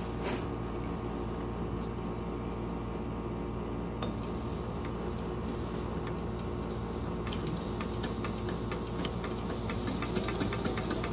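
Sailrite Fabricator industrial sewing machine stitching heavy canvas, its needle clicking in rapid runs that come thickest in the last few seconds. Under it is the steady hum of a very loud air conditioner.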